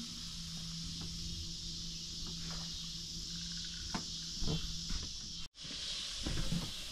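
A steady, high insect chorus from the swamp, with a low steady hum under it for the first half and a few light clicks. The sound drops out for an instant about five and a half seconds in.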